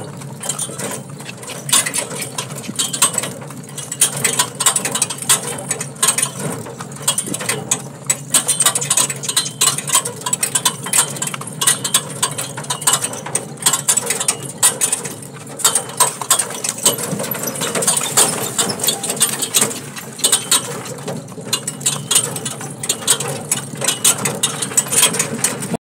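A horse-drawn cart rolling along a rough dirt road: continuous clattering and rattling of the cart frame and harness, mixed with the horse's hoofbeats.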